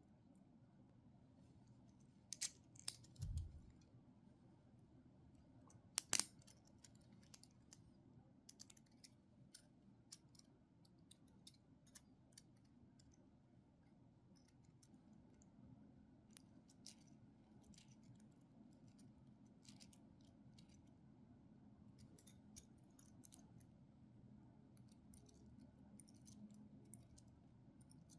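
Faint scattered clicks and taps of hard plastic parts being handled, over a low steady hum. A few louder clicks come about two to three seconds in, and one sharp click comes about six seconds in.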